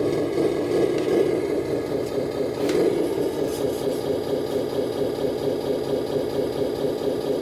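Scale RC Mercedes-Benz Arocs dump truck's sound unit playing a diesel engine idle, a steady rhythmic chugging. A short click comes about two and a half seconds in.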